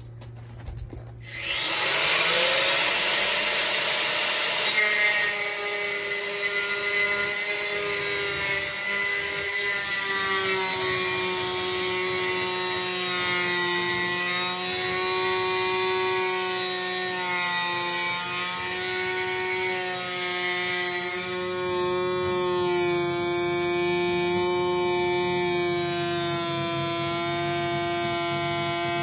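Angle grinder spinning up about a second and a half in, then cutting through the van's sheet-steel rear door with a steady high whine whose pitch sags and recovers as the disc bites into the metal.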